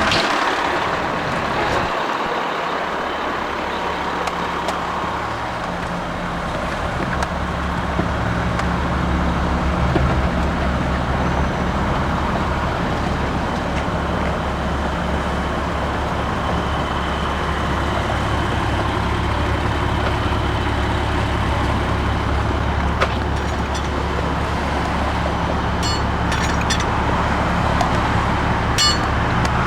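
A fire engine's motor running steadily, a low hum that starts about two seconds in and grows stronger about seven seconds in, with a few light clicks near the end.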